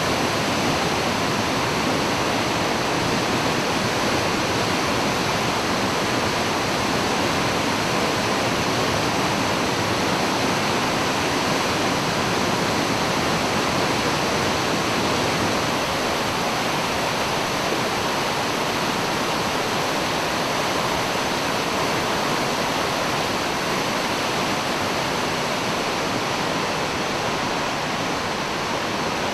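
A 30 m straight-drop waterfall, the water plunging into its pool with a steady, even rush of falling water.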